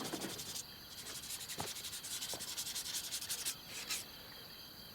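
Fast, steady scratchy rubbing, like hand-sanding or scraping, with a couple of faint knocks. It eases off near the end.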